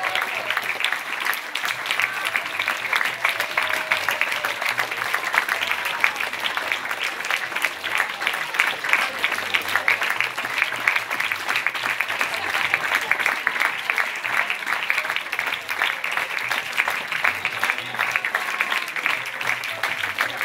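Audience applauding: steady, dense clapping from many hands without a break.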